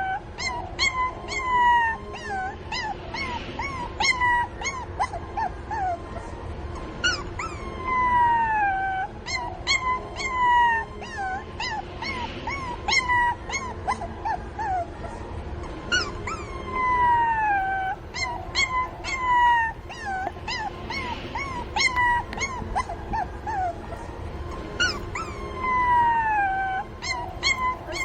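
Young puppies whimpering and yelping, crying for their mother. Long high whines fall in pitch, mixed with many short sharp yips, in bouts every few seconds.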